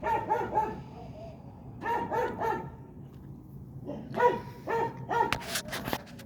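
A dog barking in short runs of two or three barks, with a few sharp clicks near the end.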